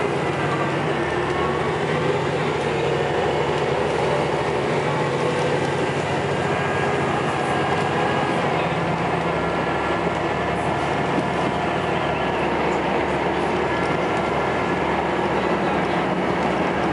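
Scania L94UB bus under way, heard from inside the passenger saloon: a steady engine drone mixed with the whine of its ZF automatic gearbox.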